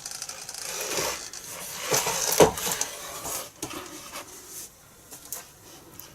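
Towerpro MG90S metal-gear micro servos driving the wing's elevons back and forth, a gear buzz in uneven spurts that is loudest in the first few seconds and dies down after about four seconds.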